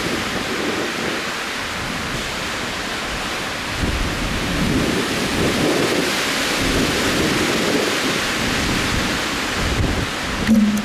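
Strong wind blowing hard across the microphone, with low rumbling gusts that swell from about four seconds in.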